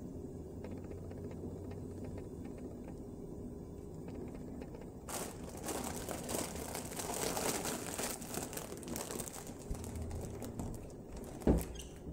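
Thin plastic produce bag crinkling as a tomato is wrapped up in it, starting about five seconds in over a low steady hum. A thump near the end.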